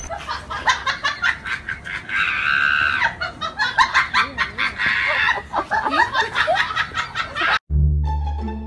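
Music with a quick, even beat and high, squeaky sliding tones. It cuts off abruptly near the end and gives way to a different piece with low plucked-string notes.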